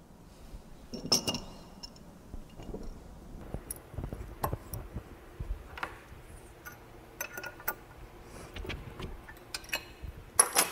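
Scattered metallic clicks and clinks of hand tools and hardware as the bolt and washer are fitted to a centrifugal pump's shaft, with a pipe wrench gripping the rag-wrapped shaft. The loudest clinks come about a second in and near the end.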